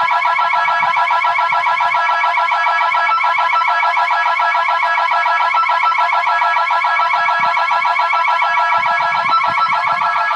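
Building security alarm sounding continuously, a loud, rapid, steady warble of several notes at once. It is a triggered intruder alarm that has not been reset.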